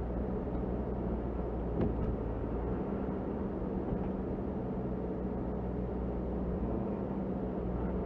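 Car cabin noise while driving on a snow-covered road: a steady low rumble of engine and tyres, with one brief click about two seconds in.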